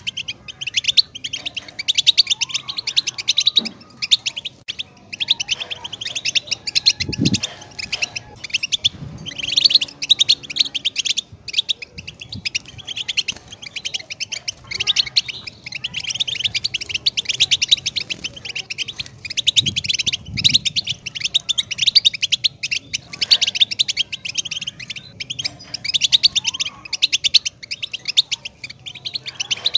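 European goldfinch singing a long, rapid twittering song of quick, high notes, broken only by short pauses.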